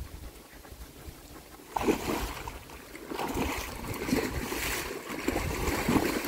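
Hose pipe water spraying onto a rhino's hide, starting about two seconds in and growing stronger and weaker several times, over wind rumbling on the microphone.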